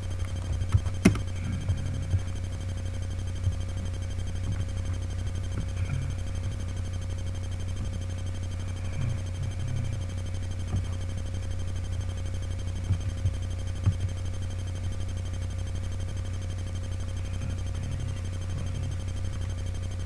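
Steady low hum with a faint higher steady tone over it, broken by a sharp click about a second in and a softer knock around fourteen seconds.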